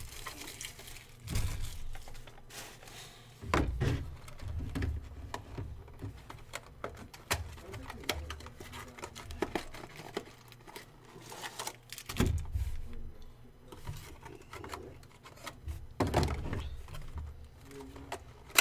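A trading-card box and its packaging being handled and opened by hand: scattered thumps and knocks with light rustling. The heaviest thumps come about a second, three and a half, twelve and sixteen seconds in.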